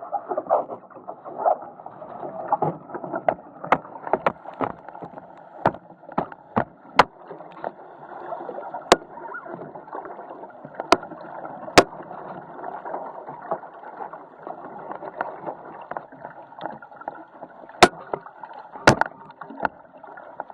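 Muffled rushing of water and wind around a sailing Musto skiff's hull, picked up by a camera mounted on the boat, with sharp knocks and clicks scattered throughout.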